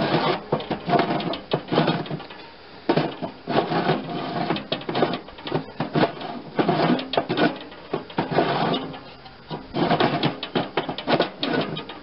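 Snowblower's steel discharge chute being twisted back and forth by hand on its toothed base ring, a rough scraping and clicking in several bursts of a second or two. The chute is binding, which the owner puts down to rust underneath.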